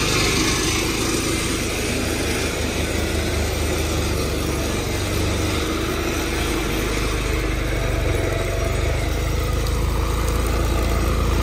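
Ditch Witch RT115 vibratory plow at work: the engine runs steadily under load while the vibrator shakes the plow blade through the ground. It makes a deep, continuous drone with a rapid pulsing, its low end growing a little stronger in the second half.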